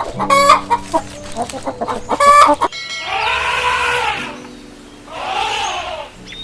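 Chickens clucking in quick, short calls, then, about three seconds in, a tiger gives two long, rough roars about a second apart.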